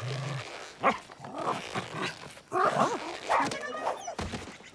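Cartoon robot dog giving a run of short barks as it tugs at a rope tied to a stump, with a sharp knock about a second in.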